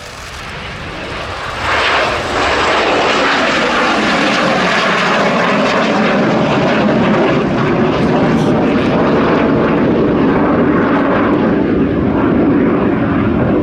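Gloster Meteor T7's twin Rolls-Royce Derwent turbojets at departure power. The jet noise swells over the first two seconds, then holds loud and steady.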